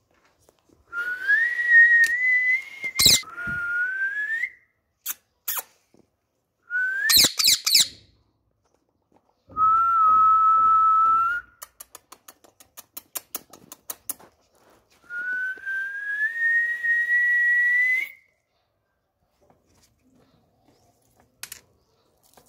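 Whistling: a series of long whistled notes, most gliding slowly upward in pitch and one held level, with a run of quick light clicks in the middle.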